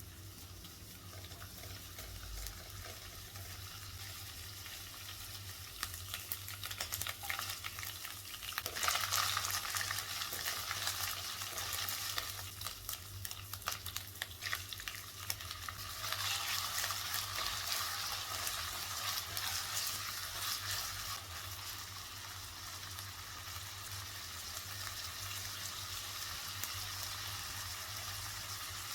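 Food sizzling as it is stir-fried in hot oil in a pan, with the scrape and click of a spatula stirring it. The sizzle grows louder about nine seconds in and again about sixteen seconds in.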